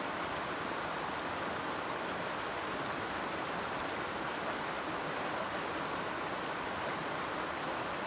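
Shallow river flowing and rippling over a stony bed: a steady, even rush of water.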